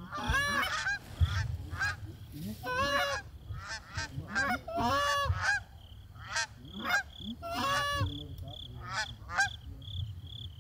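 A flock of Canada geese honking in flight, with many short, overlapping honks repeating throughout.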